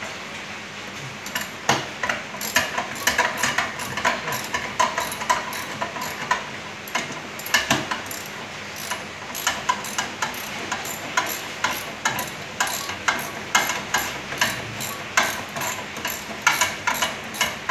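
Socket ratchet wrench clicking in quick, irregular runs as a 10 mm bolt on a washing machine's motor and drive-pulley assembly is turned.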